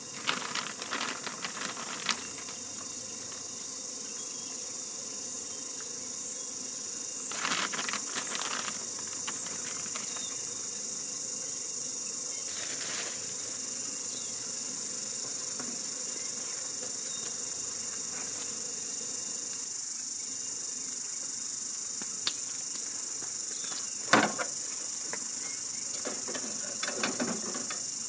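Steady high chirring of crickets in the grass. Over it come short rustles of food packaging and clicks of utensils, with a sharp clack about two-thirds of the way through.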